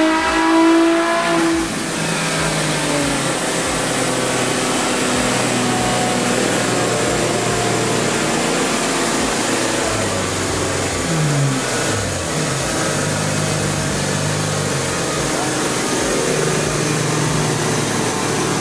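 Nissan Z's VR30 twin-turbo V6 at high revs, dropping off about a second and a half in, then running on at lower revs under a steady rush of noise, typical of the end of a dyno pull.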